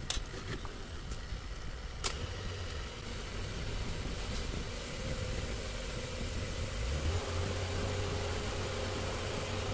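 Cylinder boring machine running as its cutter bores out a cylinder of a TATA Ace engine block: a steady machine hum with a low rumble, growing a little louder later on. A few sharp clicks sound in the first two seconds.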